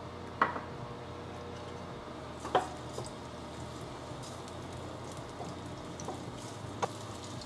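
Ginger slices frying gently in hot sesame oil in a nonstick wok, a soft steady sizzle. A few sharp knocks come from a wooden spatula hitting the wok as the slices are stirred.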